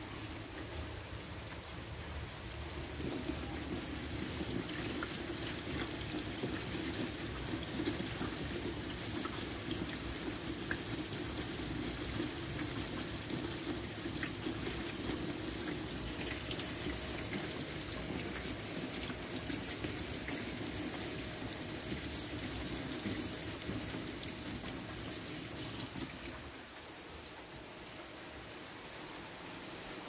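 Steady rain falling on a wet paved walkway and puddles. It grows louder a few seconds in and eases off near the end.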